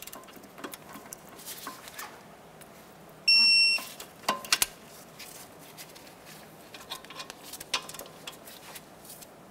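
Digital torque wrench beeping once for about half a second about three seconds in, signalling that the caliper bracket bolt has reached its 59 ft-lb target torque. Scattered light clicks of metal tools come before and after the beep.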